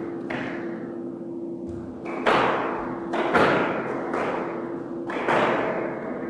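Squash ball smacks ringing around a squash court: a string of sharp hits of racket and ball on the walls, the loudest about two, three and a half and five seconds in, each followed by a long echo. A steady low hum runs underneath.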